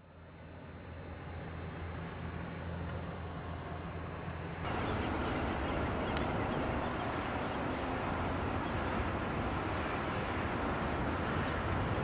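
Outdoor background noise: a steady low rumble fading in, joined about four and a half seconds in by a louder, even hiss.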